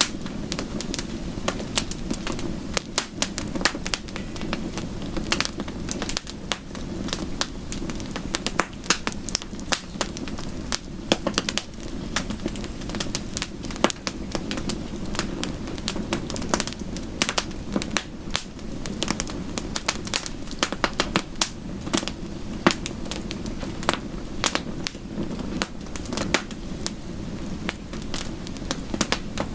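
Wood fire crackling in a fireplace: many irregular sharp pops and snaps over a steady low rushing background.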